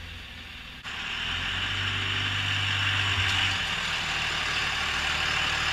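The 5.9-litre 24-valve Cummins turbo diesel of a 2001 Dodge Ram 2500 running steadily. About a second in, the sound grows louder and a steady hiss joins the low drone.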